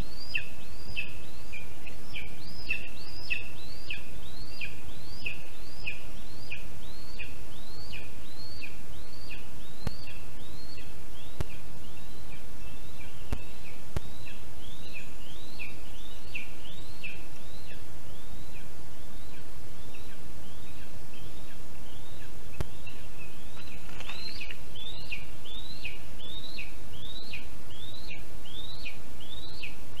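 Lesser spotted eagle nestling giving a long, regular series of short, high, upslurred calls, about two a second, over a steady low rushing background. The calls are typical of a chick begging or calling over food at the nest.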